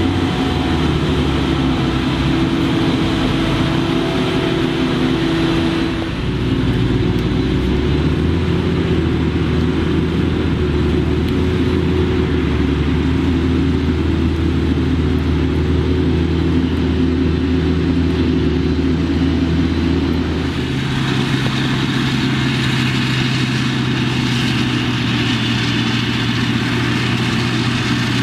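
A Claas Jaguar 960 forage harvester chopping maize and a Fendt tractor pulling a silage trailer, their engines running steadily under load. The engine pitch shifts about six seconds in and again about twenty seconds in.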